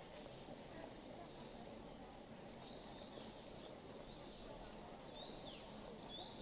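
Faint bird calls: a run of short high chirps starting about halfway through, ending in two quick sweeping whistles near the end, over a steady low background noise.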